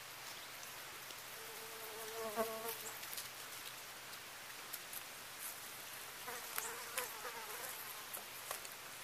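A flying insect buzzing close past twice, briefly about two seconds in and again near seven seconds, the pitch wavering as it passes. Faint scattered ticks and clicks sound in the background.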